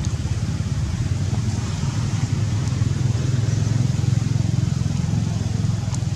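A motor vehicle's engine running steadily, a continuous low rumble with a fast even pulse.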